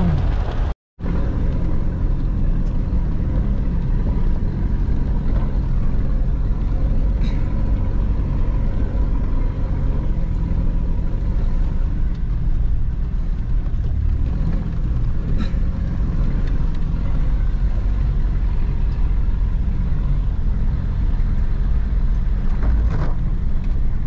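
Steady low engine and road rumble heard from inside an SUV's cabin as it drives along a rough dirt track, with a couple of faint clicks. The sound cuts out completely for an instant about a second in.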